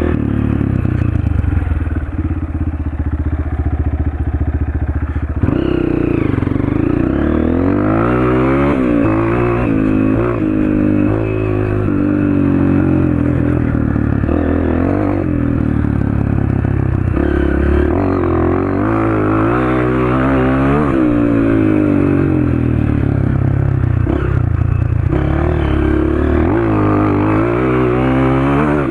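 Honda CRF230 dirt bike's single-cylinder four-stroke engine, with an FMF Powercore 2 exhaust, ridden hard. It holds steady revs for about the first five seconds, then revs up and drops back again and again, the pitch climbing and falling through the gears.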